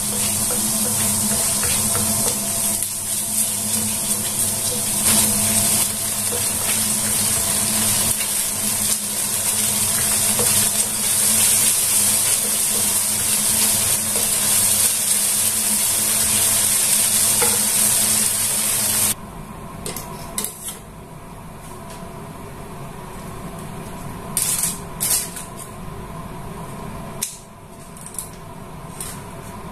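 Food sizzling in hot oil in a pan, a steady hiss that cuts off suddenly about two-thirds of the way through. After that come scattered clinks and knocks of utensils against pans and dishes.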